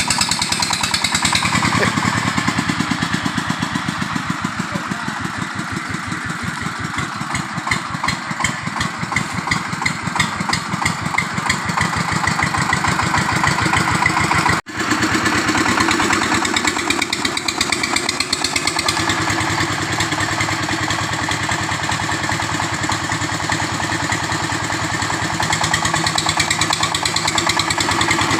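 Motorbike engine running steadily with rapid even firing pulses, cut off abruptly about halfway through and picked up again at once with a slightly different tone.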